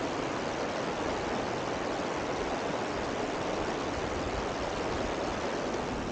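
The Niese, a small river running high and muddy, rushing steadily over stones and a shallow riffle.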